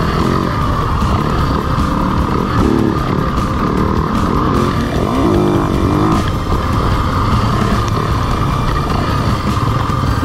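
Yamaha dirt bike engine running under way, the revs rising and falling several times as the throttle is worked.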